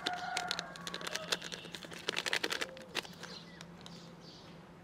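A quick run of irregular sharp clicks and knocks that thins out after about three seconds.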